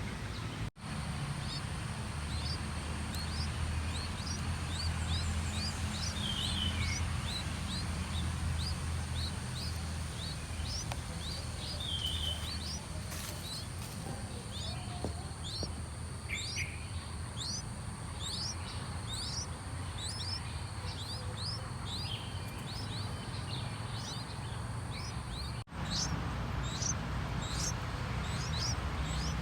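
Small birds chirping outdoors: a long run of short, high, quick chirps over a steady low rumble of background noise. The sound cuts out for an instant twice.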